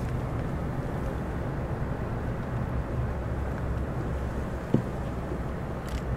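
Steady low rumble of a car driving slowly on a wet road, heard from inside the cabin, with a single sharp knock near the end.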